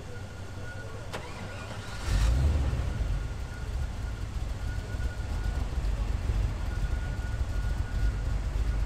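Chevrolet Corvette Stingray's V8 starting about two seconds in, then idling with a low rumble that rises and falls.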